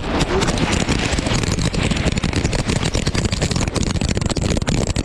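Loud rushing rumble of a ride sliding fast down a snow slope, with dense rapid scraping and crackling of snow under it and wind buffeting a head-mounted action camera's microphone.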